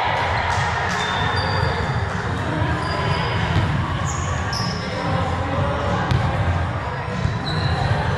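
Indoor volleyball play in a gym: sneakers squeak briefly on the court floor several times, the ball thuds on hands or floor, and indistinct voices carry in the echoing hall.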